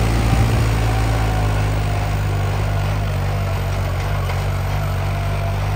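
New Holland 3630 tractor's diesel engine running steadily with a low, even engine note, easing back slightly in the first couple of seconds.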